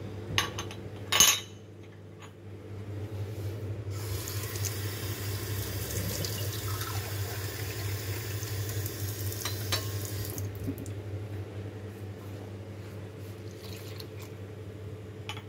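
Kitchen tap running into a small drinking glass, filling it, then the water poured from the glass into an electric Turkish coffee pot. A few sharp knocks come in the first second or so, with the tap running steadily from about four seconds in and the quieter pour after that.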